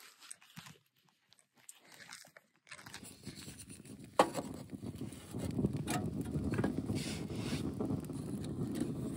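A few seconds of near silence with faint rustles. Then a wood fire burns in the open door of a small titanium tent stove: a steady low rush of flames with occasional crackles, and a sharp knock about a second after the fire comes in as a stick of firewood is pushed into the firebox.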